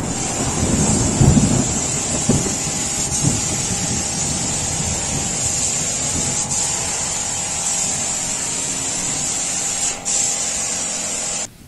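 A steady hiss with an uneven low rumble, heavier in the first few seconds, that cuts off suddenly near the end.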